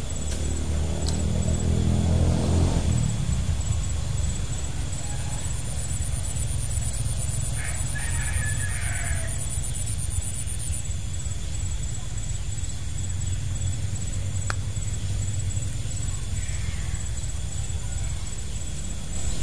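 Baitcasting reel's spool whirring out on a cast, the whine falling in pitch as the spool slows and dying away about three seconds in. A steady low rumble continues underneath.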